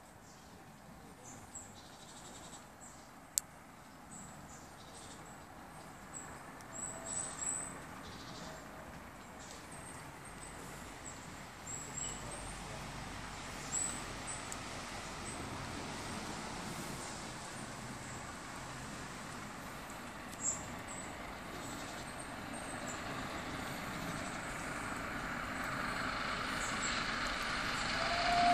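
An approaching train hauled by 60163 Tornado, an A1 Pacific steam locomotive, rumbles and grows steadily louder from near quiet. Brief faint high chirps are scattered throughout.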